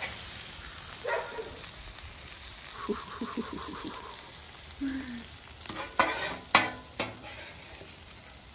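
Food sizzling on a Blackstone steel griddle top while a metal spatula scrapes and knocks against it, lifting chicken breasts and scraping up vegetables. The loudest sounds are a few sharp clacks of the spatula about six to seven seconds in.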